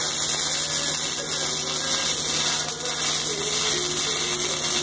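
Arc welder laying a continuous weld bead: the arc gives a steady, even hiss with no breaks.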